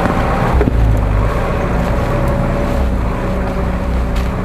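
Off-road truck's engine running steadily at low revs as it crawls slowly through the woods.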